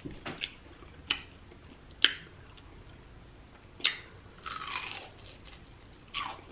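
Close-up biting and chewing of crunchy deep-fried breaded seafood: a handful of separate sharp crunches about a second apart, with a short wet mouth sound near the end.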